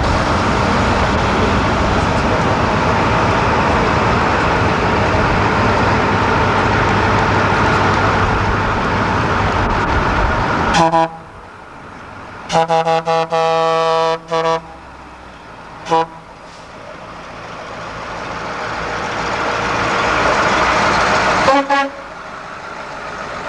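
Heavy diesel trucks driving slowly past in a convoy, engine and road noise loud for the first half. Then the noise drops and truck horns sound: a short blast, a stuttering run of quick honks, another short blast, and one more honk near the end as the next truck comes up.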